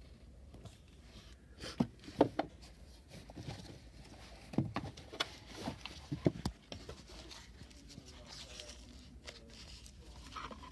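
Spools of hat-band ribbon being rummaged through and knocked together in a drawer: scattered clunks and rustling, loudest about two seconds in and again around five to six seconds in.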